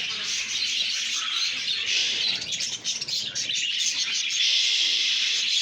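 Many birds chirping at once in a dense, steady chorus of high chirps.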